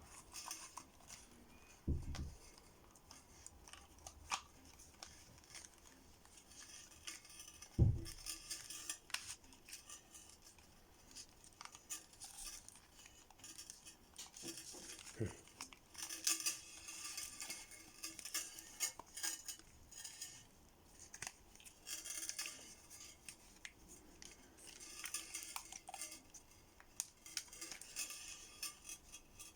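Close handling of a leather knife case and its fittings: scattered clicks, rustling and scraping, with a low thump about two seconds in and another near eight seconds.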